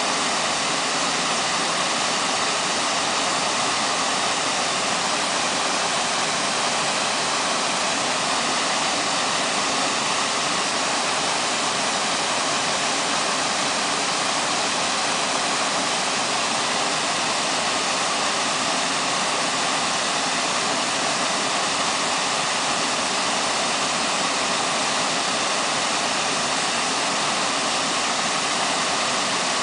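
Waterfall rushing steadily, an even, unbroken sound of falling water.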